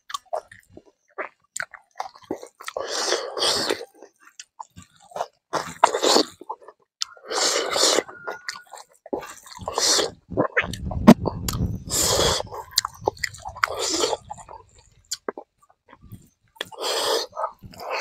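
Close-miked chewing of hand-eaten rice and smoked pork: wet mouth sounds in irregular bursts every second or two, with a few sharp clicks and a low rumble near the middle.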